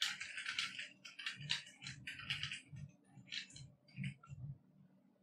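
Computer keyboard typing: a run of irregular keystroke clicks, quick at first, then sparser, stopping a little before the end.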